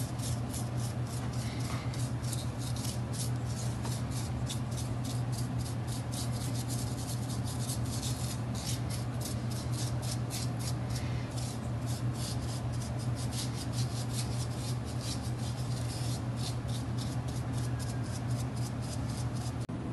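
A brush scrubbing an antique electric motor's stator windings in quick, steady back-and-forth strokes, about four a second, with short pauses, over a steady low hum.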